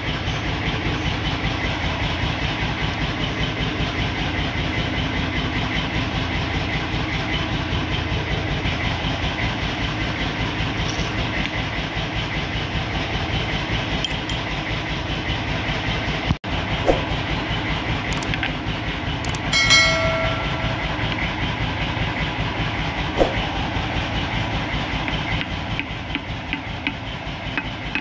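Machinery running steadily with a fast, even pulsing beat. The sound drops out for an instant just past the middle, and a short pitched note with several overtones sounds about two-thirds of the way through.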